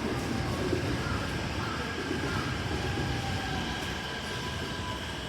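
Keikyu electric commuter train moving along the platform: a steady rumble with faint whining tones from its motors, drifting slightly in pitch.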